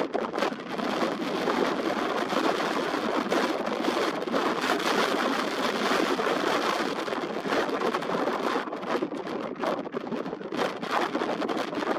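Wind buffeting the built-in microphone of a Nikon Coolpix P1000 camera: a steady rushing noise that rises and falls in gusts, easing briefly a few times in the last few seconds.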